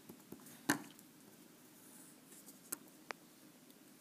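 Felt-tip pen writing and underlining on paper: faint scratchy strokes with a few light taps, the loudest about three-quarters of a second in.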